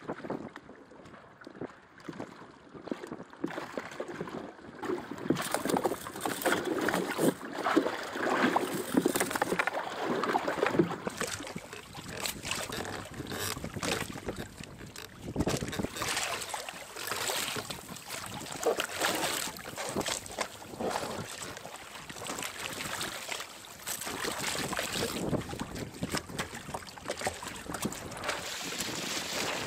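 Wind buffeting the microphone and water sloshing and splashing against a sailing kayak's hull on choppy sea, swelling and dropping unevenly.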